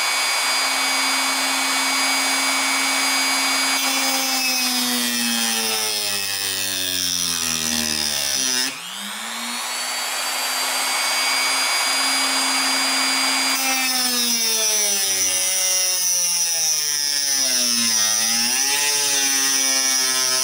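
Dremel rotary tool with a cutoff wheel running at high speed, grinding a slot into a stripped steel pocket-clip screw head. The motor whine drops in pitch and wavers each time the wheel bears down on the metal, dips sharply about eight and a half seconds in, and spins back up to a steady pitch.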